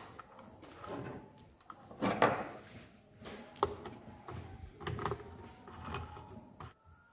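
Metal engine parts being handled: the cylinder head of a motorcycle engine being set onto its cylinder, giving irregular light knocks, clinks and scrapes. The loudest knock comes about two seconds in, with a sharp click a little later.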